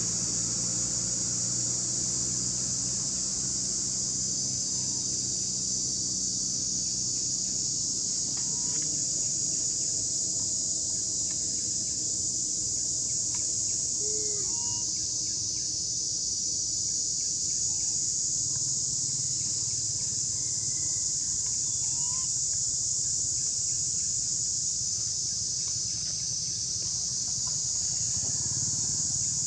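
Steady high-pitched drone of an insect chorus, with a few short chirping calls scattered through it.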